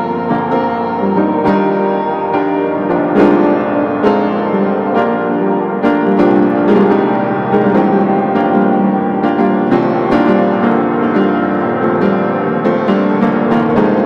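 Background instrumental music: a piano playing a steady flow of notes.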